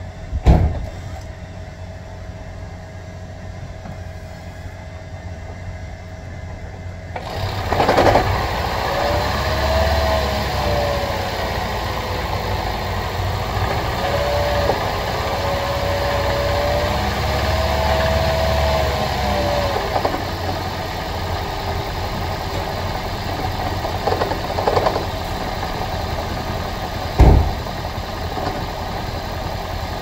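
Toyota Prius 1NZ-FXE 1.5-litre petrol engine starting about seven seconds in and running during a compression test of cylinder 4. The gauge sits in place of that cylinder's spark plug, so the cylinder is not firing, and it reads under 50 psi, too low. A wavering tone rides over the engine noise for about ten seconds after it starts, and a single sharp knock comes near the end.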